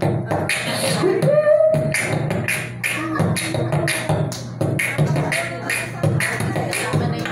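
A boy beatboxing into a corded handheld microphone: a steady rhythm of low kick-drum thumps and sharp snare and hi-hat clicks, with a hummed note that slides up and holds about a second in.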